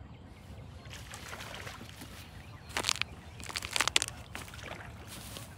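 Hooked trout splashing at the water's surface as it is reeled in toward the bank, with a short burst of splashing about three seconds in and a louder cluster just before four seconds.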